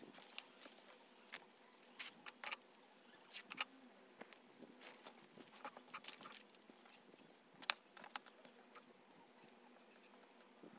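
Faint rustling and scraping of fabric and a paper pattern being handled and smoothed on a table, with scattered light taps and clicks of small tools being set down; the sharpest click comes near the end of the second third.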